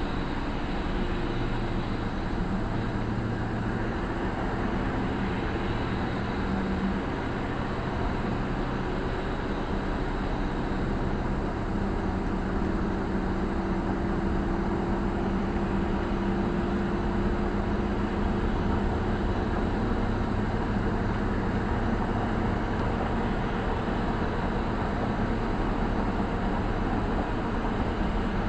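Steady road and engine noise of a car cruising at highway speed, heard from inside the cabin: tyre rumble and hiss with a low engine drone.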